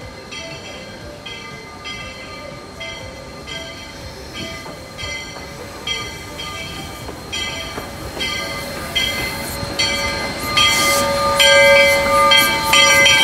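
Steam locomotive's bell ringing steadily, about two strokes a second, growing louder as the engine draws near and passes. Near the end a loud hiss of steam joins in.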